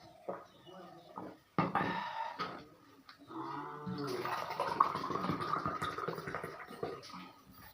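Close-up mouth sounds of eating snail curry: a short burst, then a long wet slurping and sucking stretch lasting several seconds, with a brief whistling pitch as it begins.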